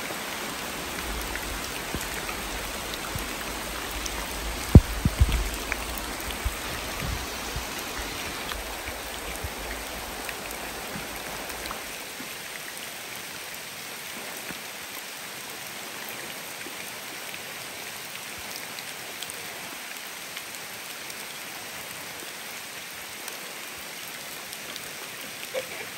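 A steady rush of water, rain or shallow water running over rock. A few sharp knocks come about five seconds in, and a low rumble underneath stops about halfway through.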